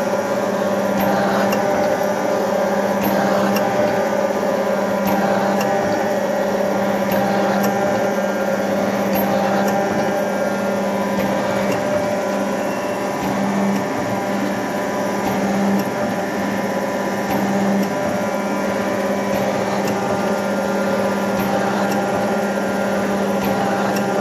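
Slotting machine running, its ram stroking a cutting tool through a steel gear's bore to shape internal splines: a steady machine hum with faint regular ticks.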